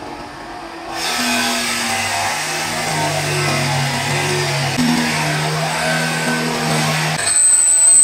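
Background music with a plucked-string melody over a bench drill press running, its spade bit boring through stacked plywood. Near the end there is a brief high-pitched tone.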